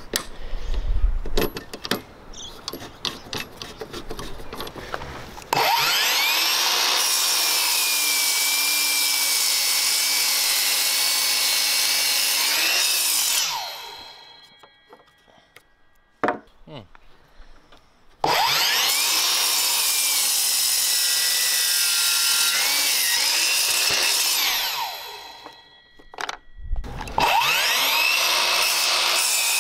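Metabo KGS 18 LTX 216 cordless 18-volt sliding mitre saw, a brushed motor driving a 40-tooth 216 mm blade, cutting timber. Twice the motor starts suddenly, whines up to speed, drops in pitch as the blade goes through the wood, then winds down, and a third run starts near the end. Before the first cut there are a few seconds of knocks and clicks.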